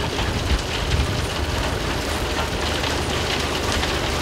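Steady running of the rock-processing machinery at a construction-and-demolition waste recycling plant: a low mechanical hum under a dense, continuous rattle of crushed stone.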